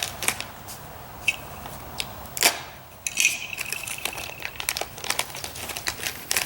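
Plastic packaging crinkling and tearing as a parcel of parts is opened by hand, with many small clicks and one sharp, loud crackle about two and a half seconds in. A thin high squeak runs for about a second and a half just after three seconds in.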